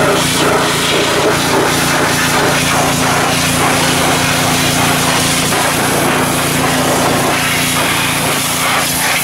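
Pressure washer spraying water into a car's engine bay, a steady loud hiss, with a steady low engine hum beneath it.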